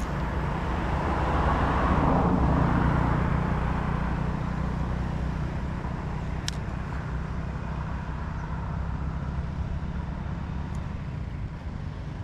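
Steady outdoor rumble with a motor vehicle passing, swelling and then fading over the first few seconds. A single sharp click about six and a half seconds in.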